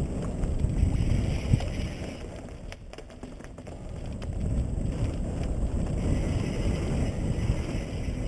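Wind buffeting the microphone of a helmet-mounted camera, with mountain bike tyre noise on a dirt trail during a fast descent. The rumble eases for a couple of seconds about three seconds in, where a few light clicks come through.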